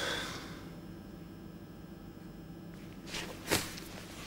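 Quiet room tone with a faint steady hum, and a brief noise about three and a half seconds in.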